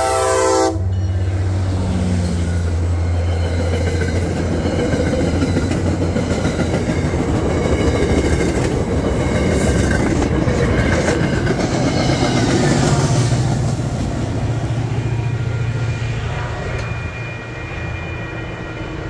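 Diesel commuter train passing close by. The locomotive's horn cuts off just under a second in, then the engine drones loudly as it goes past, followed by the rumble and clatter of the passenger coaches on the rails, fading near the end.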